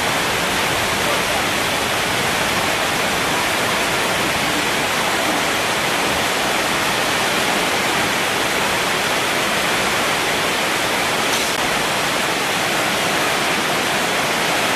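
A steady, loud rushing hiss that does not change throughout, like heavy rain or running water.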